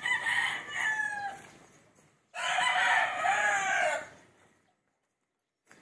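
Roosters crowing: two crows, the second starting about two seconds after the first ends.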